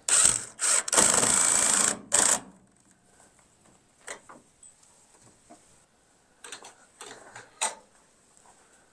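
Cordless drill driving screws into a wooden door: a few short bursts of the motor whirring, then one steady run of about a second and a last short burst, followed by a few light knocks and clicks.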